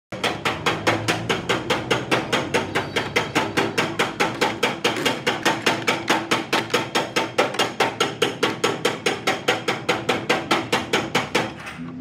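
Sharp metallic strikes in a perfectly steady beat of about four a second, stopping suddenly near the end.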